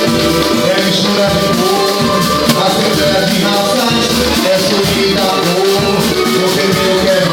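Samba-pagode music playing: melodic instruments over a steady, busy rhythm of light high percussion.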